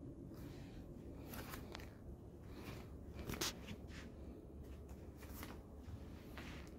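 A series of soft rustling and scuffing noises over a low room hum, loudest about three and a half seconds in.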